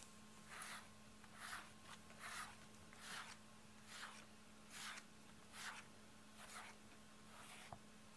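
Wire pin brush with ball-tipped pins stroking through a cat's fur: a faint, scratchy swish with each pass, about one stroke a second, nine strokes in all.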